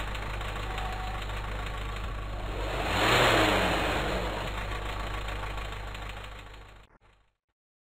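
Diesel engine idling, then given a full-throttle free-acceleration burst about three seconds in that revs up and falls back to idle: one of the full-load acceleration cycles of a smoke opacity test. The engine sound fades and cuts off suddenly just before the end.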